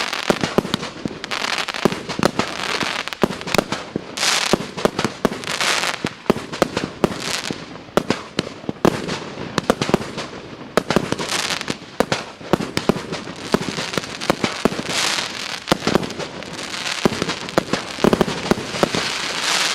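Firework battery (cake) firing: an irregular run of sharp bangs, often several a second, with stretches of hiss between them.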